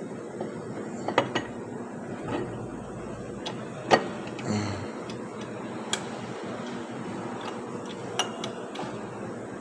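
Steel gear being worked by hand onto its shaft in an open 2020 Toyota RAV4 CVT transmission case. Metal parts click and knock at irregular intervals, the loudest knock about four seconds in.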